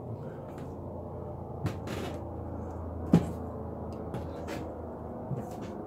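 Steady low drone of a distant helicopter, with a few sharp knocks and clicks on top, the loudest about three seconds in.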